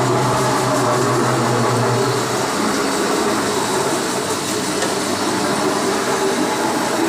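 A machine running steadily with a loud, even mechanical noise. A low hum underneath drops away about two and a half seconds in.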